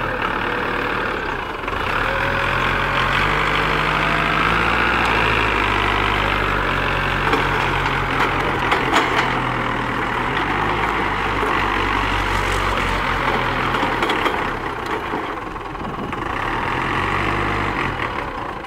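Hyster forklift's engine running as it is driven and turned, its speed rising and falling several times. A few short rattles come about eight to nine seconds in.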